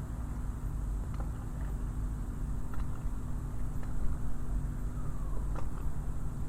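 Harbour ambience: a steady low engine rumble with a constant hum, a few faint clicks and knocks, and a short falling squeak about five seconds in.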